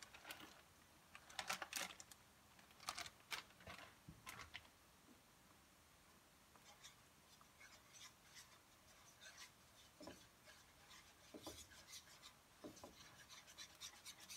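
Faint crackle of a plastic bag as shredded cheddar is shaken out of it in the first few seconds, then a wire whisk scraping and stirring through thick cheese sauce in a non-stick pan, with soft scratches and a few light knocks.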